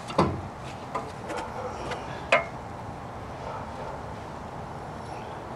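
Metal knocks and clinks as a used 4-bolt wheel hub is pushed onto an MGB's front stub axle: a knock at the start, a few lighter clicks, and a sharp ringing clink a little over two seconds in.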